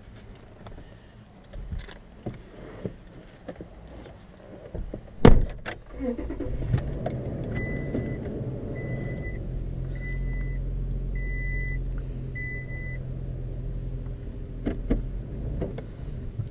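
Pickup truck's door shuts with a loud thud about five seconds in, then the engine starts and settles into a steady low run. The truck's warning chime beeps five times in an even rhythm.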